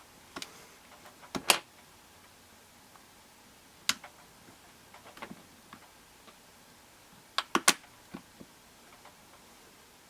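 Irregular sharp clicks and taps of a plastic opening tool working between the cracked front glass and the metal bezel of a second-generation iPod touch, prying the cover's clips loose. About a dozen clicks, with a quick cluster of three or four a little past halfway.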